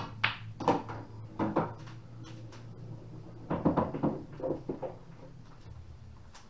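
Pool shot on a pool table: sharp clicks as the cue ball is struck and hits an object ball, then a cluster of knocks and a short rumble about three and a half seconds in as the potted ball drops and rolls through the table.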